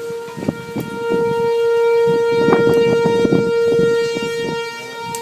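Outdoor tornado warning siren sounding a steady held tone, getting louder about a second in and easing off slightly near the end.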